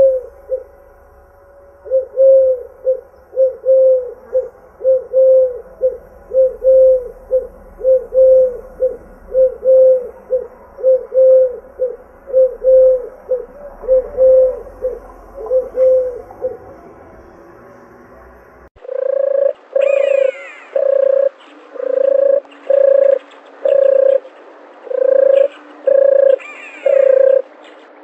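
Doves cooing: a long, fast run of short repeated coos, about two a second. Then, in a different recording, a steady series of fuller coos, with fainter higher-pitched bird calls over them.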